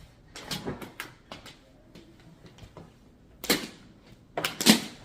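Clicks and knocks from Henry vacuum cleaner parts being handled and tightened together. There are a few separate knocks, and the loudest pair comes near the end.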